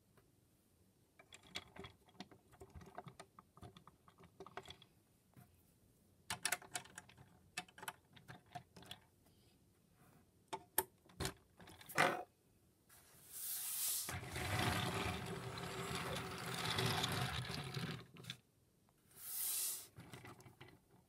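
Plastic parts of a Transformers Siege Ultra Magnus action figure clicking and clacking as it is handled and folded into truck mode. There is a loud snap about twelve seconds in, then a rubbing noise for about five seconds and a shorter one near the end.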